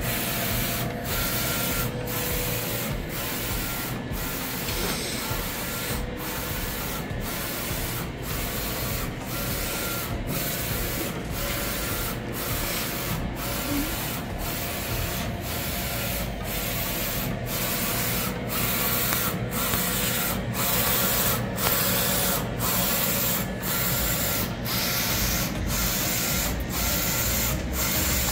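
Roland SOLJET PRO III XC-540MT wide-format inkjet printer printing: the print-head carriage sweeps back and forth with a steady whir, broken by a short pause at each turn about once a second. It is running a test print on its four newly installed heads.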